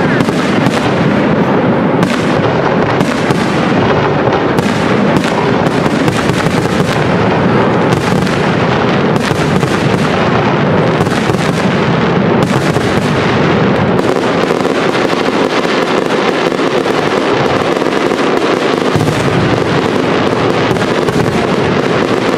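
Aerial firework shells bursting in a dense, unbroken barrage of bangs and crackling: the closing barrage of a professional fireworks display.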